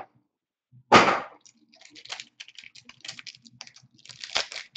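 A short, sharp rip of card packaging about a second in, followed by the crinkling and crackling of a trading-card pack's foil wrapper being handled and opened.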